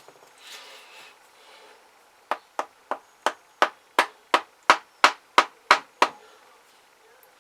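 About a dozen light, sharp hammer taps in a steady run of roughly three a second, growing louder toward the middle and easing off near the end.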